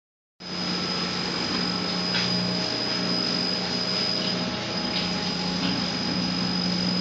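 Bench grinder motor running steadily with a low hum and a high whine, with a few brief rasps about two, five and five and a half seconds in.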